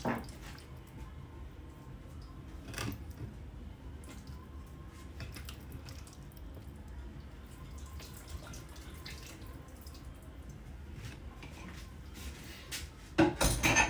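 Raw chicken being handled in a wooden bowl: faint wet squelching and scattered small clicks over a low steady hum, then a few louder knocks near the end.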